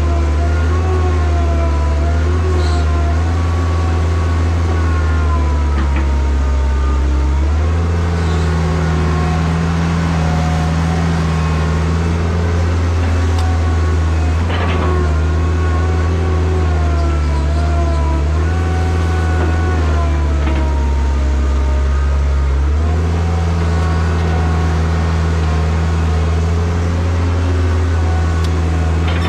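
Heavy diesel engine running steadily under load, with a wavering high whine over it. The engine note shifts about 7 seconds in and again near 23 seconds, and there are a few short knocks.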